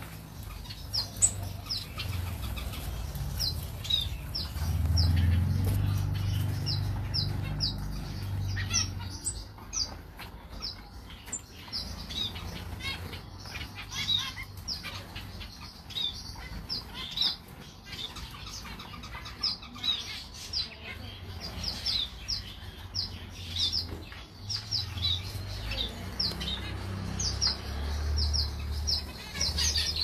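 A flock of captive finches, mostly zebra finches, calling: a constant chatter of short, high, downward-sliding chirps from many birds at once. Under it, a low rumble swells about four to nine seconds in and again near the end.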